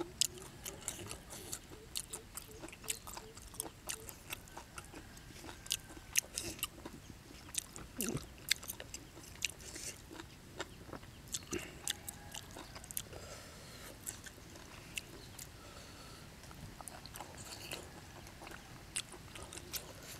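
A man chewing and smacking mouthfuls of raw beef slices dipped in spicy sauce, with many short, wet mouth clicks.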